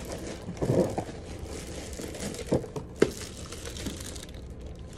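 Plastic wrapping crinkling and rustling as a wrapped portable DVD player unit is handled and lifted out of its box, with a few sharp knocks in between.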